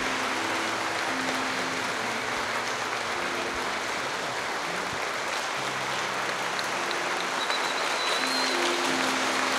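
Wedding congregation applauding steadily, with soft instrumental music of held notes underneath.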